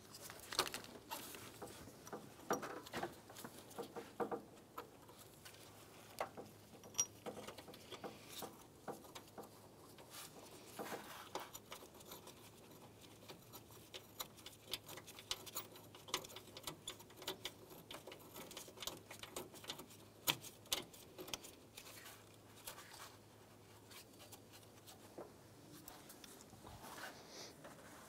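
Faint, irregular small clicks, ticks and scrapes of gloved hands working a metal radiator mounting bracket and threading its bolt by hand.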